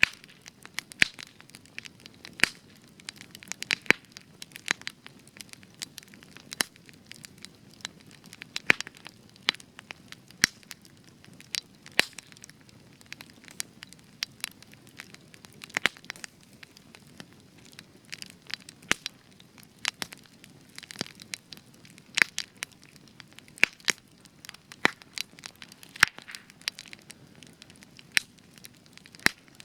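Spruce-wood campfire burning, with frequent sharp crackles and pops at irregular intervals over a soft hiss.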